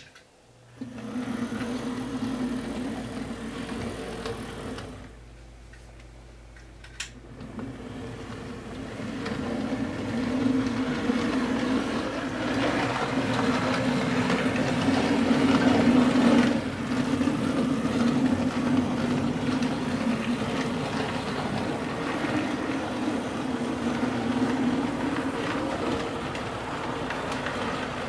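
OO gauge model steam locomotive, a Bachmann Standard Class 5MT, running along the track hauling coaches: a steady buzzing motor hum with wheel noise on the rails. It starts about a second in, drops away briefly about five seconds in, then returns and grows louder. There are clicks at the start and about seven seconds in.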